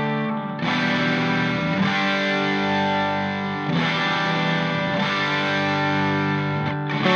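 Background music: distorted electric guitar playing sustained chords that change a few times.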